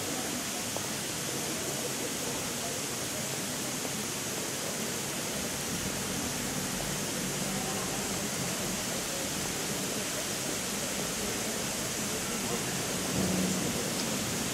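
Steady hiss of water spraying from a sprinkler installation's nozzles into fine mist.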